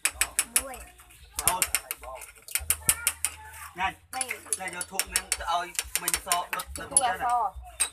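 Quick runs of sharp clicks and clinks from a metal spoon and a plastic bowl being handled, with faint pitched calls or voices behind.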